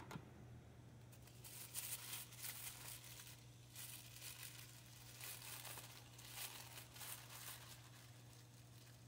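Thin plastic packaging bags crinkling and rustling in irregular bursts as hands unwrap them. A faint steady low hum runs underneath.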